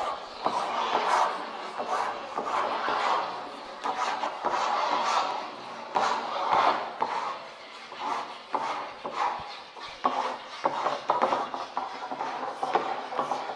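Marker pens scratching and rubbing along paper in long drawing strokes, the sound electronically amplified. Several strokes overlap in uneven swells, growing shorter and quicker near the end.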